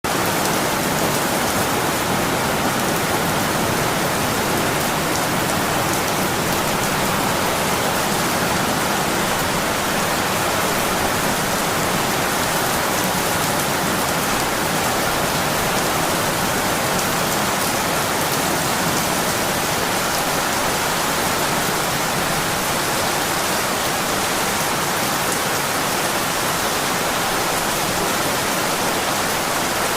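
Steady, heavy monsoon rain, a dense even hiss of falling rain without a break.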